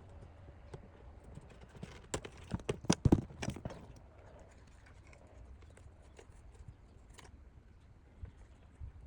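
Irregular clicks and knocks of plastic and metal parts being handled and worked loose while the car's air-conditioning unit is dismantled, with a burst of louder knocks about two to four seconds in.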